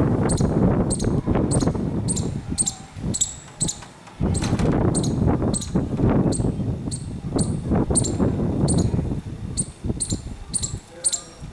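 Squirrel giving its clicking alarm call: short, high chips repeated about twice a second. Under them is a loud low noise that rises and falls.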